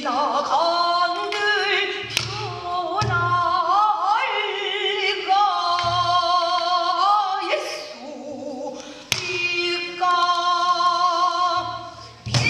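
Pansori singing: a woman's voice holding long, sliding notes with wide vibrato in a sad passage, accompanied by a buk barrel drum that gives a few sparse low strokes and sharp stick clicks.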